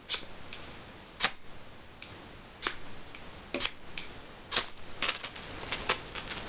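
Magnesium fire steel struck repeatedly with its scraper to shower sparks onto jute tinder: sharp rasping scrapes about a second apart, then several in quick succession near the end.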